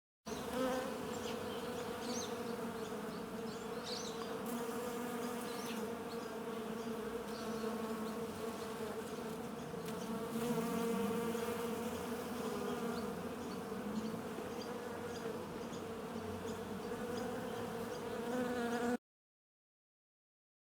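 Insect buzzing, like a bee, held steady with slight wavering for about nineteen seconds, starting and cutting off abruptly.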